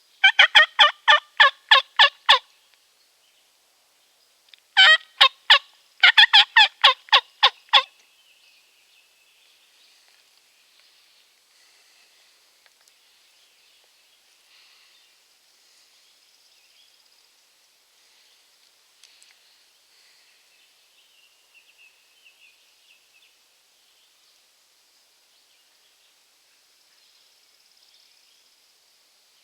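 A turkey call sounding loud, evenly paced hen yelps: three runs of notes in the first eight seconds, the first and last about eight yelps each, calling to a jake turkey. Afterwards only faint songbird chirps.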